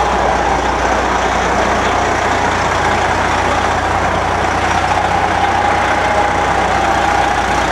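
Steady rumble of idling vehicle engines, with a steady higher hum over it.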